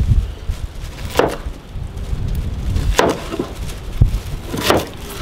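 Large utility knife chopping through an onion onto a cutting board: three sharp knocks, spaced a little under two seconds apart, with a few lighter taps between.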